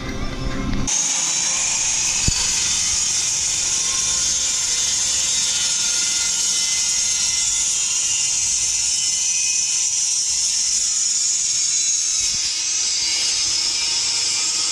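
Abrasive chop saw cutting steel exhaust pipe: a steady, high hiss that starts abruptly about a second in and holds an even level.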